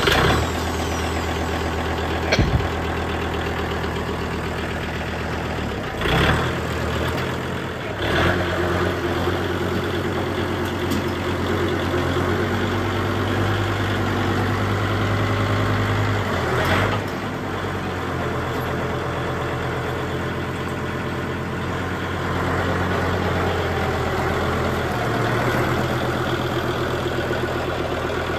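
Kubota L3750 tractor's diesel engine running steadily just after start-up. It gets a little louder in the last several seconds as the front loader lifts a round hay bale.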